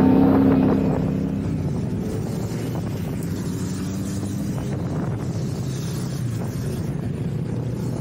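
Motorcycle engine pulling hard at a steady high pitch, then easing off about a second in and running on more quietly at a steady cruise, with road and wind noise.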